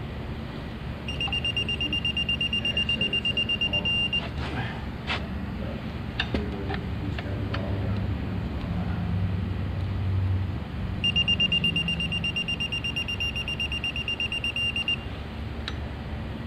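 Electronic beeper sounding a rapid, high-pitched beeping twice, each time for about three to four seconds, with a few metallic clicks and knocks in between.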